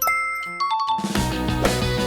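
Background music: a short break of bell-like notes stepping down in pitch, then the full band with a steady beat comes back in about a second in.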